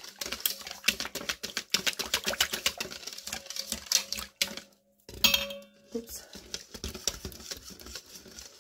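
Wire whisk beating a thin tapioca-starch and rice-flour batter in a stainless steel mixing bowl: rapid clicking and scraping of the wires against the metal, several strokes a second. It breaks off briefly about four and a half seconds in, and a short vocal sound follows.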